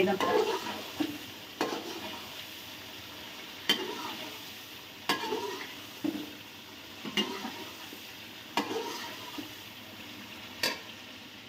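Metal spoon stirring chicken karahi in a metal karahi over the flame: a steady sizzle of frying, with the spoon clinking and scraping against the pan every second or two.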